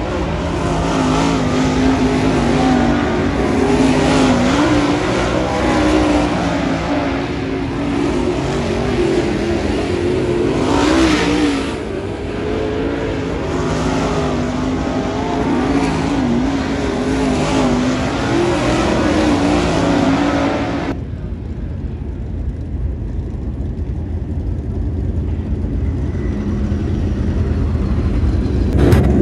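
Super late model dirt-track race cars' V8 engines running around the oval, the engine note rising and falling as the cars go through the turns. About twenty seconds in, the sound cuts suddenly to a duller, quieter one.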